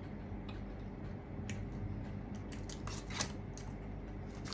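Scattered small clicks and taps of food and its packaging being handled while eating, clustered around three seconds in, over a steady low hum.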